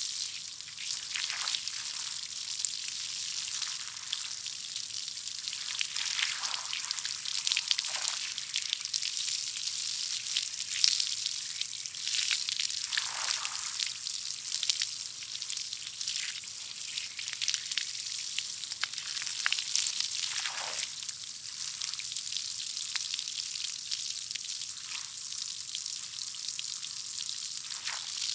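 Garden hose spraying water: a steady hissing spray, with a few brief deeper swooshes now and then.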